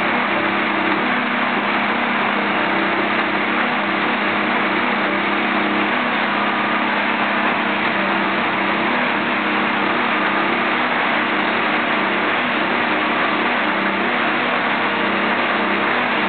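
Nordco Mark IV production tamper running while tamping ballast: a steady, loud engine and hydraulic drone, with a few tones that shift and drop out every few seconds as the machine works.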